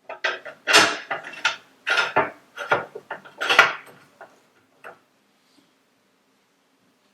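Metal parts clinking and knocking together as they are handled and fitted: a quick irregular run of sharp clacks over the first few seconds, thinning to a couple of light taps.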